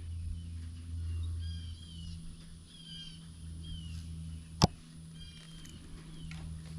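A crimping tool snaps shut once on a wire connector, a single sharp click about two-thirds of the way in. Faint bird chirps and a steady low hum run underneath.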